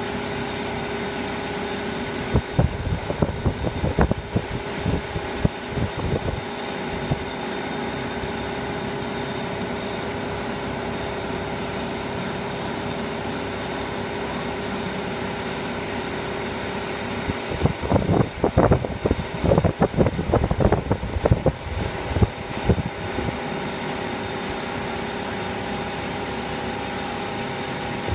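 Spray booth extraction fans running with a steady hum, under the hiss of a compressed-air gravity-feed spray gun that stops now and then for a few seconds. A few seconds in, and again past the middle, irregular low gusts of air buffet the microphone.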